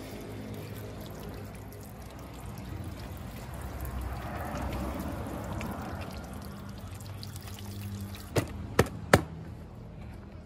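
Water pouring from a stainless steel kettle onto an upturned plastic flower-pot mould, swelling in the middle and then thinning to a trickle. Near the end come three sharp knocks in quick succession.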